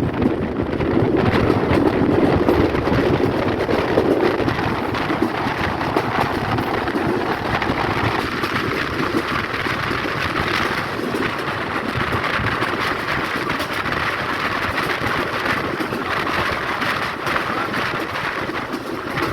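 Passenger train running along the track: a steady, loud rumble and rattle of wheels on rails.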